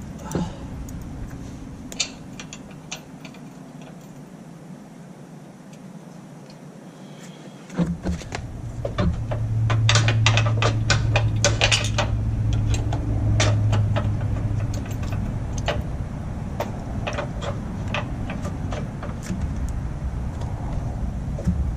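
Metal clicks and clinks of hand tools working the grille guard's mounting bolts, coming thick and fast for a few seconds about a third of the way in. A low steady rumble comes in about eight seconds in and stays under them.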